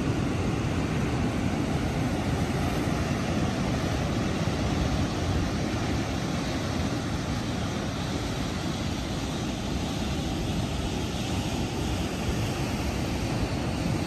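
Ocean surf breaking and washing against rocks: a steady, deep rush of noise with no distinct pauses.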